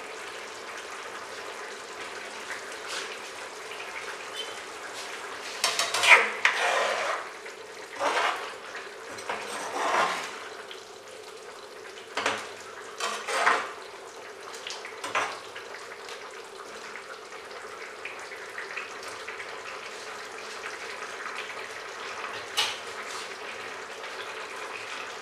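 Metal ladle stirring simmering curry gravy in a metal pan: a run of scrapes and clinks against the pan between about six and fifteen seconds in, and one more near the end, over a steady hiss from the simmering gravy.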